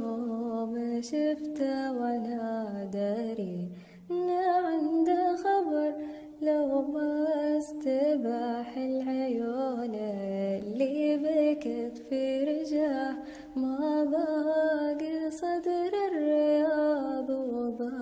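A solo voice singing an Arabic lament slowly and unaccompanied, with long ornamented held notes broken by short breaths.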